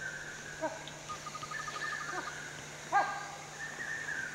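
Forest insects and birds: a steady high insect drone, a rapid trill of pips about a second in, and several short bird chirps, the loudest about three seconds in.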